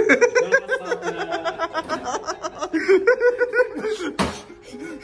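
A man laughing hard in rapid breathy bursts, pausing briefly and then laughing again. One sharp impact sounds about four seconds in.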